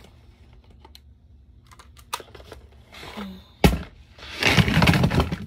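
Light clicks of packaged makeup items being handled, then a sharp knock about three and a half seconds in and a clatter of items falling and knocking together for about a second: things being dropped.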